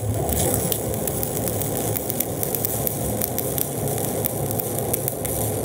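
Stick-welding arc of an E309L-16 stainless electrode on DC electrode positive at a little over 110 amps, burning steadily with a crackle of many small sharp ticks as the rod is dragged along a carbon-steel-to-stainless lap joint.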